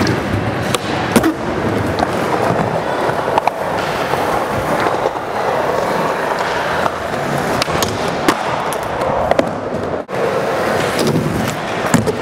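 Skateboard wheels rolling on smooth concrete, a steady rumble broken by a few sharp clacks of the board and trucks striking the surface.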